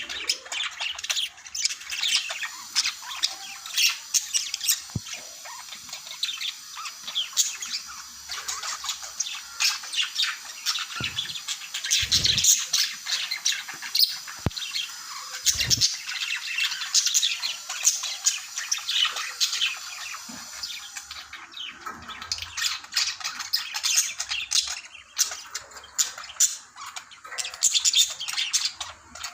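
Budgerigars chattering, with a constant run of chirps, warbles and squawks throughout; a few soft low thumps between about 11 and 16 seconds in.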